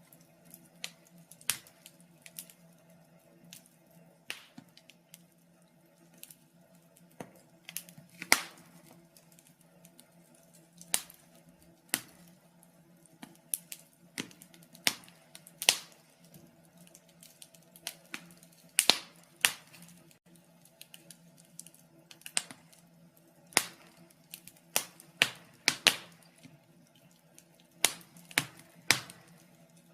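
Wood fire in a fireplace crackling: irregular sharp pops and snaps at uneven intervals, some much louder than others, over a faint steady hum.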